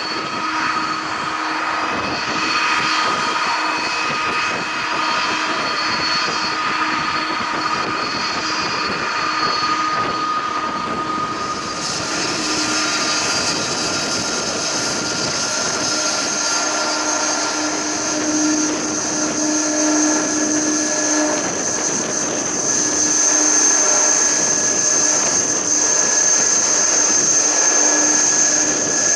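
Airbus A330's twin jet engines running at low taxi power, a steady hum with a high whine. The whine comes in more strongly about halfway through and the sound grows slightly louder towards the end as the airliner lines up on the runway.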